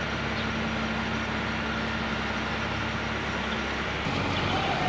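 Wheel loader's diesel engine running steadily; about four seconds in its note changes and it grows a little louder.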